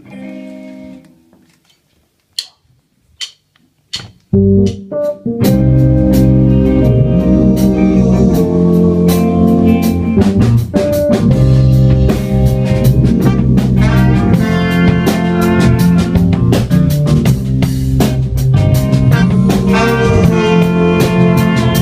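Band playing the instrumental intro of a pop-rock song: a brief held chord, then three evenly spaced clicks counting in, and about four seconds in drum kit, bass and guitar come in together and play on steadily.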